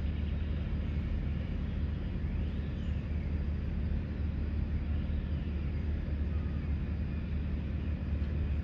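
Steady low outdoor rumble, with two faint, high rising-and-falling calls about two and a half and five seconds in.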